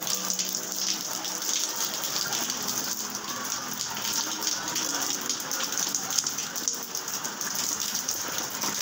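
Steady rain falling, with many individual drops ticking on nearby surfaces over an even hiss.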